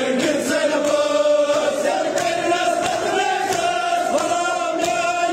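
A large crowd of men chanting a Kashmiri noha in unison, voices held on a steady line, with sharp hand slaps of chest-beating (matam) landing at intervals.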